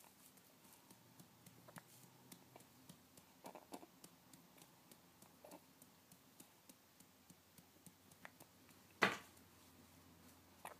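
A single sudden, sharp hiccup about nine seconds in, after several seconds of near quiet broken only by a few faint small clicks and softer hics.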